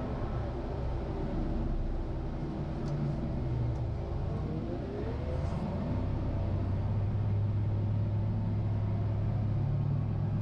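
Caterpillar 950GC wheel loader's diesel engine running steadily, heard from inside the cab. About halfway through, a whine rises in pitch and the engine settles into a stronger, steady drone.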